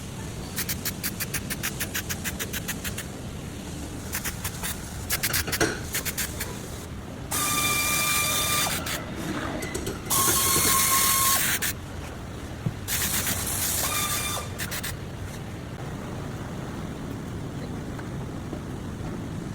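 Body-shop tool work: a rapid run of clicks for a few seconds and some scattered knocks, then three bursts of a power tool running, each one to two seconds long, with a steady whine over a loud hiss.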